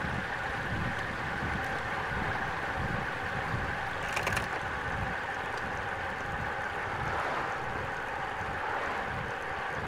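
Steady wind rush and road noise of a road bike riding at speed, with low buffeting on the camera's microphone. There is a brief rattle about four seconds in.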